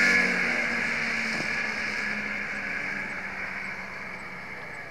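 Two-stroke racing snowmobile engines running at speed, fading steadily as the sleds pull away into the distance.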